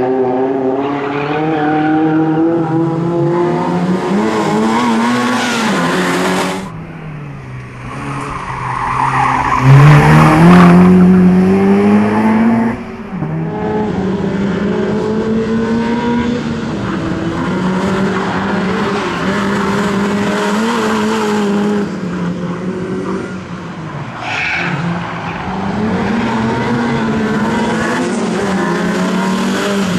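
BMW E30 318is's 1.8-litre four-cylinder engine revving hard through a timed rally-sprint run, its pitch rising and falling with throttle and gear changes, loudest with a rising pitch about ten seconds in. The tyres squeal at times in the turns.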